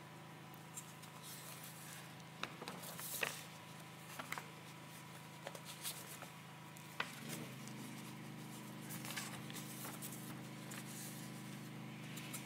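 Soft rustling and scattered light clicks of paper notes being handled at a lectern, picked up faintly by the microphone over a steady low electrical hum, which grows a little fuller about seven seconds in.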